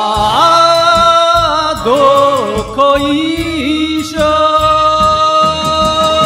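Enka song: a solo voice sings the melody over a backing track with a steady beat, settling into one long held note from about four seconds in.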